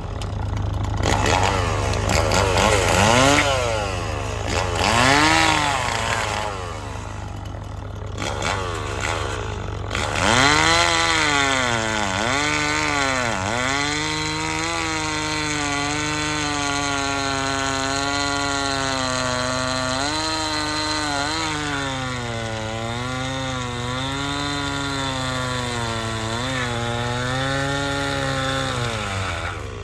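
Stihl chainsaw cutting through a pine log. Its engine revs up several times, then runs at length with the pitch sagging and recovering as the chain bites into the wood. A steady low engine hum, the mini excavator's motor, runs underneath throughout.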